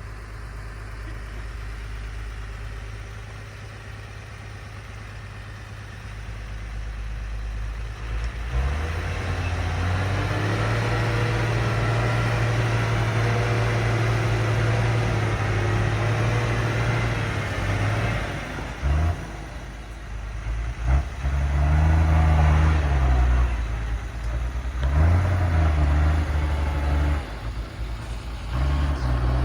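Heavy earth-moving machine's engine running, picking up speed about eight seconds in, holding steady, then revving up and down repeatedly under load.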